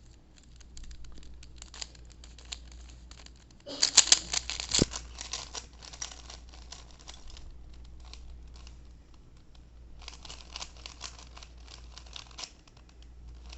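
Plastic 3x3 Rubik's cube being turned by hand: quick runs of clicking, rasping layer turns, loudest about four seconds in, with another run between about ten and twelve seconds.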